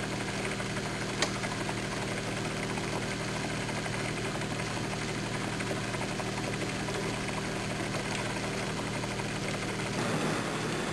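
Steady hiss of a small HHO oxyhydrogen torch flame burning from a fine needle tip, over a low steady hum that drops away near the end. A single sharp click about a second in.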